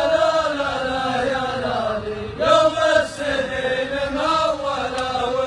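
Arabic rajaz verse chanted by men's voices in long, drawn-out melodic phrases, with a new phrase starting a little over two seconds in.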